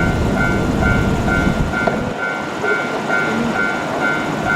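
Level-crossing warning bell ringing about twice a second over the rumble of a passing freight train on the rails. The low rumble drops off suddenly about two seconds in.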